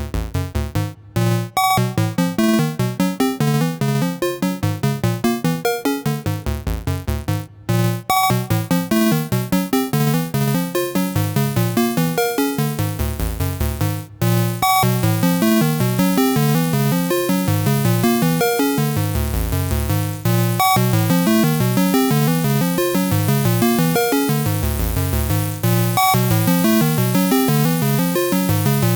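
Dreadbox Dysmetria synthesizer playing a fast sequence of short, repeating pitched notes, lightly sweetened with reverb, with brief breaks about 1, 7.5 and 14 seconds in.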